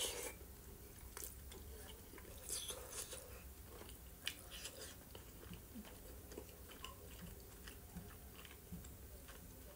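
A person quietly chewing a soft boiled dumpling (a varenik), with scattered small mouth clicks.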